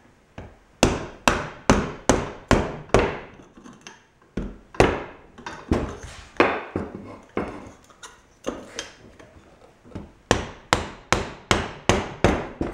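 Rubber mallet striking a brass sleeve to drive a new ball bearing onto the rotor shaft of a Dayton 2 hp electric motor. The sharp knocks come about two a second, in runs of several strikes with short pauses between.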